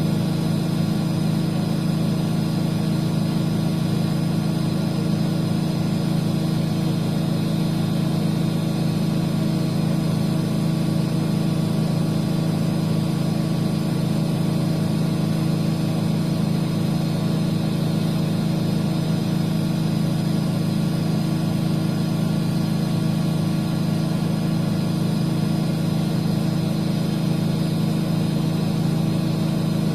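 Miele washing machine running, a steady loud motor hum with a fixed pitch that holds unchanged throughout.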